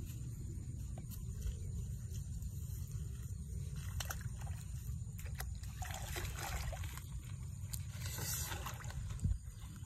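Shallow paddy water splashing and sloshing as a person wades in, with dry palm fronds rustling under his hands, louder about six and eight seconds in, over a steady low rumble.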